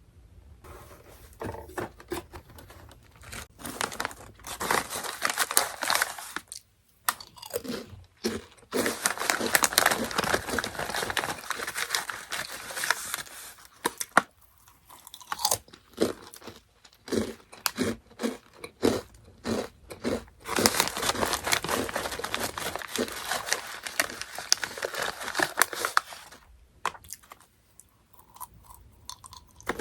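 Orion mala Chicken Pop snack being crunched and chewed close to the microphone, in long bouts of dense crunching with short pauses between mouthfuls.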